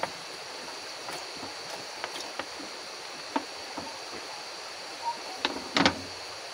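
A short cluster of sharp knocks near the end, like someone striking asbestos roof sheeting behind the shelter. Under it, small crackles from the wood cooking fire and a steady hiss of the river.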